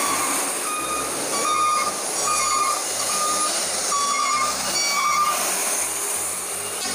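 Steady road-traffic noise as a tanker truck and a motorcycle pass, with a string of short, high beeping tones at a few slightly different pitches sounding over it.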